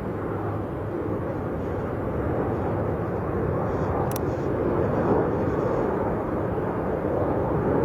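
Airliner jet engine noise: a steady rumble, with a brief sharp click about four seconds in.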